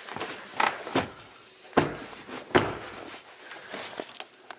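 Several knocks and thuds with some rustling as the floor carpet and trim behind a car's front seats are put back in place. The two loudest thuds come about two and two and a half seconds in.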